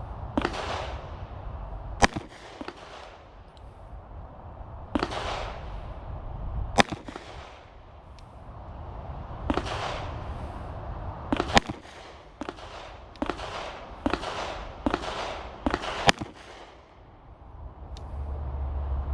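Pistol shots fired slowly one at a time, about four or five seconds apart, each a sharp crack, with fainter shots in between and a rushing noise that rises and falls between them.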